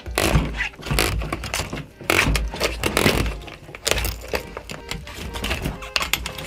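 Kitchen knife being forced through the hard shell of a giant painted spiny lobster at the joint between head and tail on a plastic cutting board: a close run of sharp cracks, crunches and knocks as the shell gives and the blade and body knock against the board.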